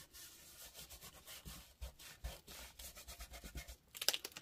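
Foam sponge dauber rubbing and dabbing ink through a plastic stencil onto paper: a quick run of soft scrubbing strokes. Near the end, a short crackle as the stencil is lifted off the paper.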